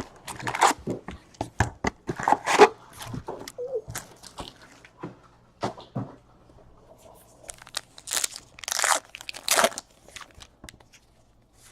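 Foil trading-card pack wrappers being torn open and crinkled, with cards rustling as they are handled; irregular crackles and tears.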